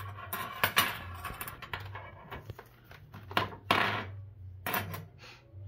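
Metal dough hooks of a hand mixer clinking against each other and the countertop as they are picked up, in several short clatters spread through the few seconds.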